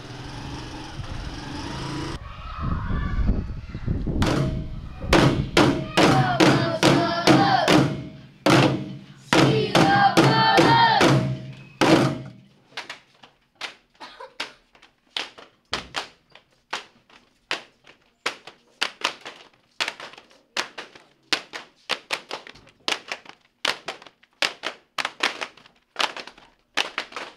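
Homemade percussion, painted plastic buckets and tins struck as drums, playing a steady beat of about two strokes a second. Voices sing or chant over denser drumming during the first half. It opens with a couple of seconds of outdoor hiss.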